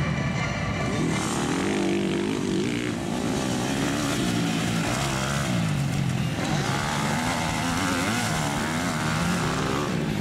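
Motocross dirt bike engines revving, the pitch rising and falling again and again as the throttle is opened and closed around the track.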